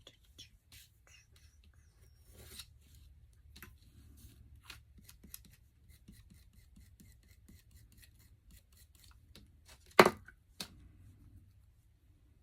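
Hands at craft work on a stapler, peeling and cleaning off decoupaged paper: scattered small clicks and scrapes, with one loud knock about ten seconds in and a smaller one just after.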